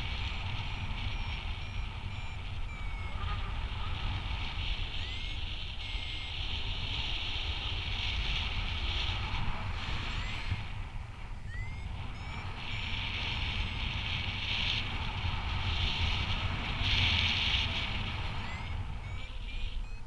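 Wind rushing over the microphone in paraglider flight, a steady low rumble with hiss that swells and fades in gusts. Faint short beeps and rising chirps come and go through it, like a flight variometer signalling changes in climb and sink.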